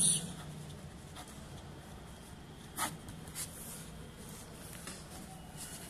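Pen writing on ruled notebook paper: a faint scratching of the tip across the page, with one brief sharper stroke a little before the middle.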